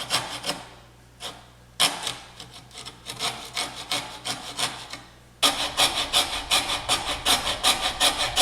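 Coping saw cutting through a small piece of wood in quick back-and-forth strokes, about four a second, pausing briefly twice and cutting harder in the last few seconds.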